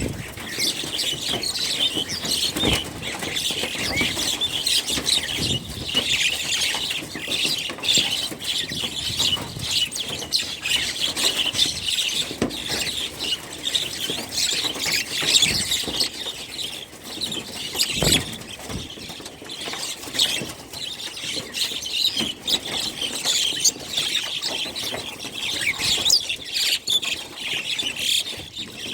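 A dense chorus of many small birds chirping and twittering together without pause, with scattered short knocks.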